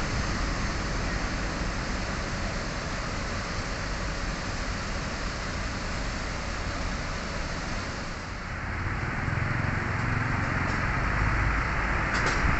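Bus terminal background of running vehicle engines and traffic. About eight seconds in it changes, and a Hino bus's diesel engine comes up as a low, growing rumble as the bus drives across the yard.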